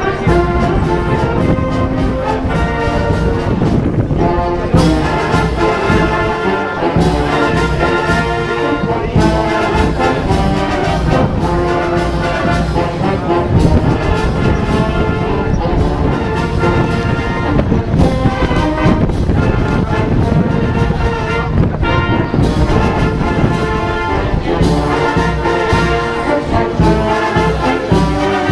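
A Portuguese filarmónica wind band playing a piece, brass to the fore, continuous and steady throughout.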